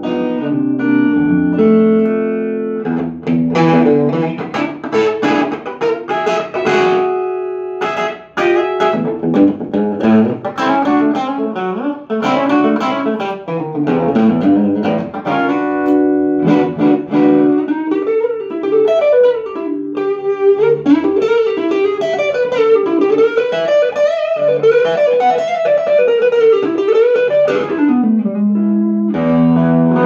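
Electric guitar played through a Bell & Howell AQ2 amplifier converted from a Filmosound-style projector amp: picked chords and arpeggios in the first half, then fast single-note melodic runs from about halfway in.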